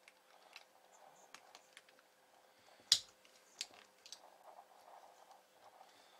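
Faint plastic clicks and handling noise from an in-line fuse holder being worked on a power lead, with one sharp click about three seconds in.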